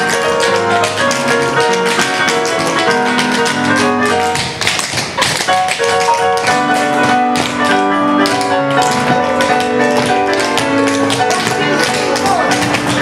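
Tap shoes striking the floor in a quick, dense rhythm over recorded show music, with a short lull in the taps about four and a half seconds in.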